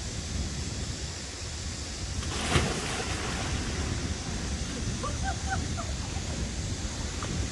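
Valley stream water rushing steadily, with a low rumble underneath and a brief louder burst of noise about two and a half seconds in.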